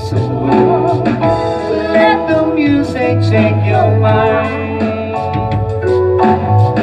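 A woman sings a song into a microphone, accompanied by an electronic keyboard playing sustained chords, with a steady beat underneath.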